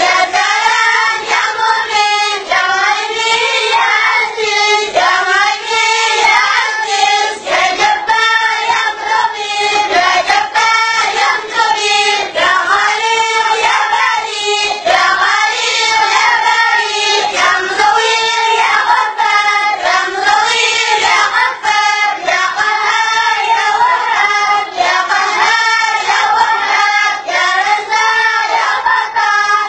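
A group of boys singing a rhythmic song together in unison.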